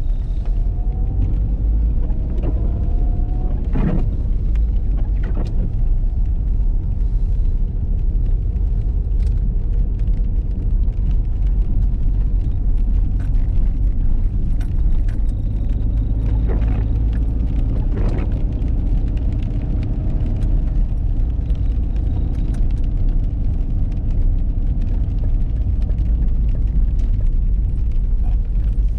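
Steady low rumble of a car driving, heard from inside the cabin: engine and tyre noise on a wet road, with a faint engine hum that drifts a little in pitch. A few brief clicks or knocks stand out, around four and five seconds in and again about two thirds of the way through.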